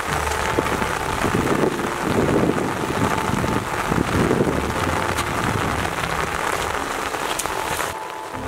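Steady heavy rain falling on a flooded rice field, a dense even hiss that thins out sharply shortly before the end.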